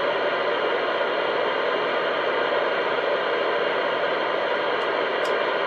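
CB radio speaker giving out a steady static hiss from an incoming transmission. The signal reads strong, about 7 S-units, but carries little audio.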